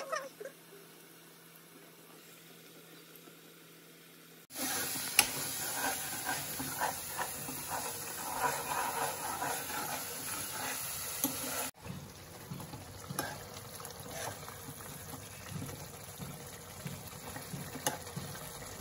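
Cooking in a nonstick kadhai on a gas stove: sizzling, with a steel spoon stirring and scraping through simmering lauki kofta curry. It comes in suddenly about four and a half seconds in, after a quiet start with only a faint hum.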